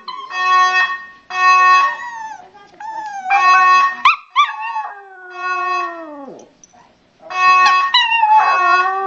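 A fire alarm sounding in repeated short flat beeps while a dog howls along, its howls sliding down in pitch over the beeps. One long howl falls away low about six seconds in, and the beeps and howling start again after a short lull.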